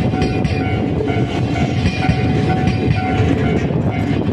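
Passenger train coaches rolling past at close range: a steady, loud rumble of wheels on the rails, with the red diesel locomotive at the rear of the train coming alongside near the end.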